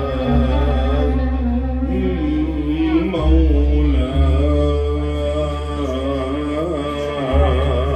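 A man singing a long, wavering melismatic phrase of an Arabic tarab song through a microphone, with no clear words. Live band accompaniment with a deep, sustained bass note that changes pitch a few times.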